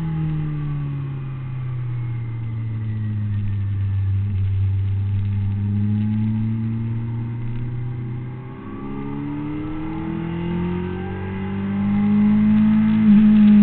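Honda CBR600RR's inline-four engine running at speed, heard from on the bike. Its pitch sinks at first and then climbs. It drops briefly about two-thirds through, then climbs again, louder near the end.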